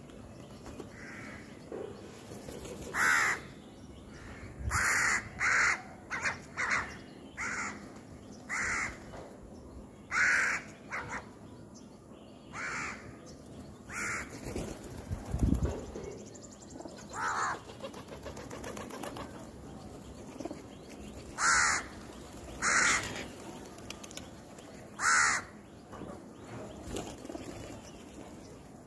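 House crows cawing: short, harsh calls over and over at irregular gaps, some in quick pairs, a few much louder than the rest. A single low thump about halfway through.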